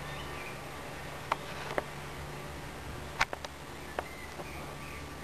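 Handling noise from a hand-held camera and lens setup being moved over a bare circuit board: a few sharp clicks and taps, the loudest about three seconds in, over a steady low hum. Faint high chirps come near the start and again near the end.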